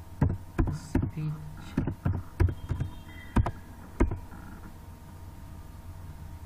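Computer keyboard being typed on: a string of irregular key clicks that stops about four seconds in, leaving a steady low hum.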